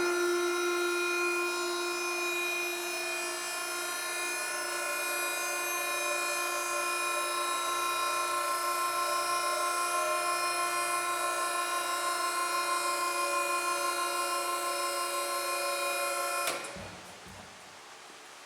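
The tilt-lift drive of a BEcom BE-LSPM 250 TR tilt-over spiral mixer raising the mixer head and bowl, a steady whine of several tones. It stops suddenly about two seconds before the end as the lift reaches its stop, leaving only a faint hiss.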